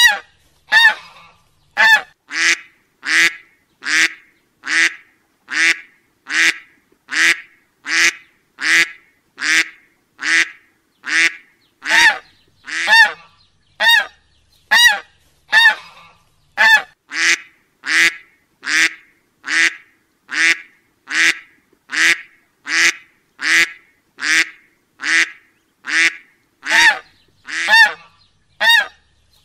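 A duck quacking over and over in a steady, even series, about three short quacks every two seconds.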